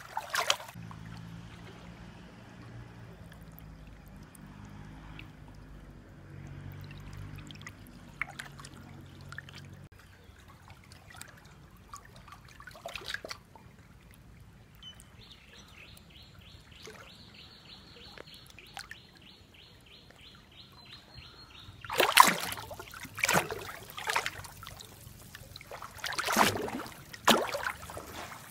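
Water lapping and trickling around a small floating Lego boat, with a few loud sudden surges of water noise near the end. Partway through there is a fast, even chirping at about four calls a second, likely a bird.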